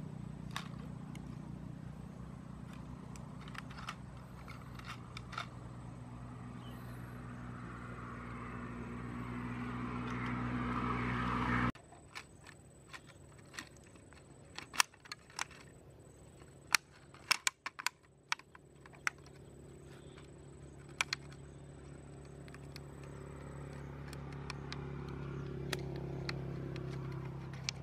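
A steady engine hum grows louder and cuts off abruptly about twelve seconds in. After that come sharp clicks and crackles of a plastic bottle being pressed and fitted into a woven bamboo fish trap, and the faint hum returns near the end.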